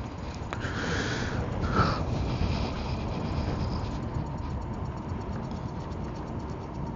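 Wind rumbling on the microphone while riding an electric scooter, steady throughout, with a faint steady whine underneath and two brief higher-pitched sounds about one and two seconds in.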